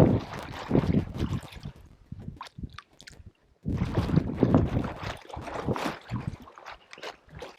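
Water sloshing and splashing in uneven strokes, like someone wading through shallow marsh water, with a brief lull about halfway through.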